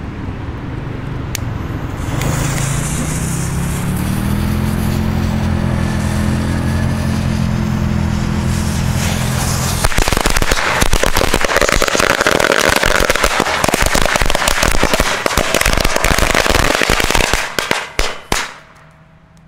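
Firecracker strings set off inside a metal frying pan and a cooking pot: a rapid, dense crackling volley of bangs begins about ten seconds in and runs for about eight seconds, rattling in the metal, before stopping abruptly. Before the bangs a low steady hum is heard, rising a little in pitch early on.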